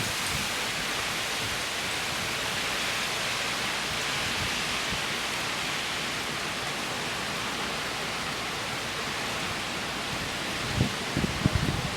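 Steady hiss of heavy hurricane rain driven by wind. A few short low bumps come about a second before the end.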